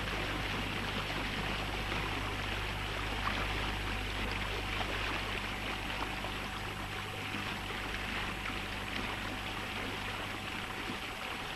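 Water rushing and hissing along the hulls of a Strider Club sailing catamaran running fast downwind, at over 10 knots. Under it runs a steady low hum and a thin steady whine.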